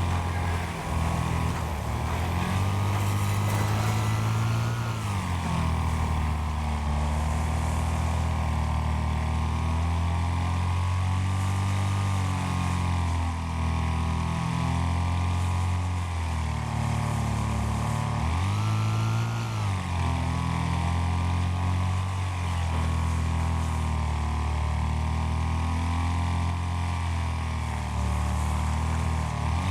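Racing lawn mower engines running hard, their pitch rising and falling as the mowers speed up and slow down, with a marked rev-up about five seconds in and again near twenty seconds.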